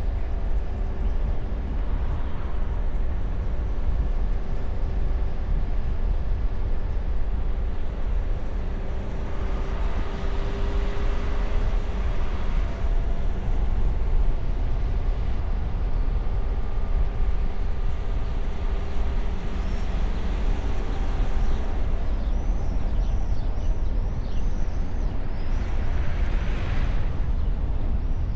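Car driving along a road, heard from a microphone on the bonnet: a steady low rumble of wind and tyre noise with a faint engine hum. The noise swells briefly twice.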